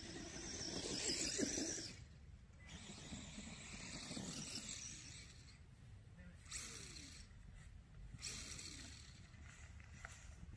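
Traxxas Bandit RC car's brushless electric motor whining as it drives through snow on paddle tires, swelling and easing as the throttle is worked, loudest in the first two seconds and cutting back sharply just before the two-second mark.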